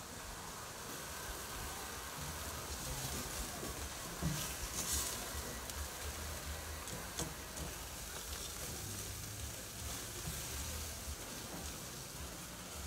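Jerk chicken sizzling on the grate of an oil-drum grill over a wood and charcoal fire, with a few brief clicks.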